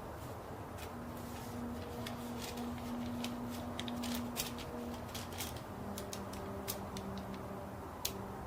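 A faint, steady low hum of the kind reported as a 'strange trumpet sound in the sky', over background rumble; about halfway through the hum drops to a slightly lower pitch. Scattered sharp clicks throughout.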